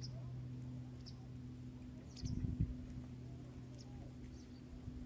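Short, faint bird chirps scattered over a steady low hum. About two seconds in comes a brief, louder low rumble.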